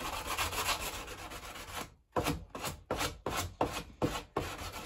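Sandpaper wrapped around a wooden block rubbed by hand over the rounded corner of a wooden worktop, smoothing the edge into a curve. It scrubs continuously for about two seconds, pauses briefly, then goes in about eight short back-and-forth strokes, roughly four a second.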